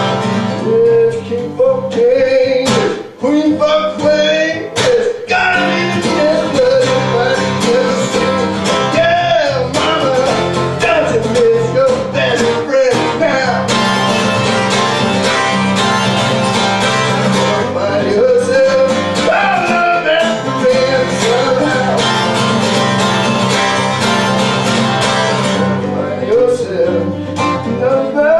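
Acoustic band playing an instrumental break of a blues song, led by guitar over steady low notes, with a melody line that bends between notes.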